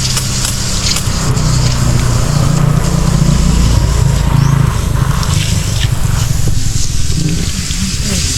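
Pressure washer running, its motor and pump humming steadily under the hiss of the water jet as it sprays a vent hood screen clean.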